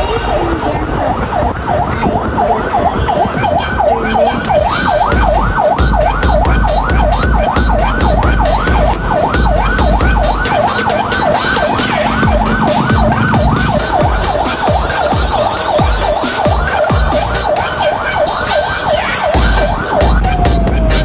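Electronic siren in fast yelp mode, its pitch rising and falling about three or four times a second over a low rumble; near the end it switches to a slower rising wail.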